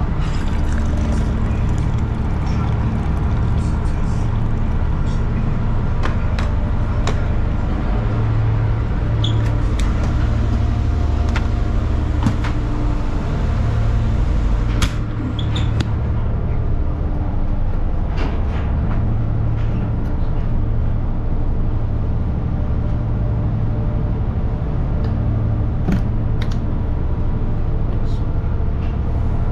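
Steady low drone of the tugboat's diesel engines heard inside the galley, with scattered clicks and knocks of a cup, a fridge door and containers being handled.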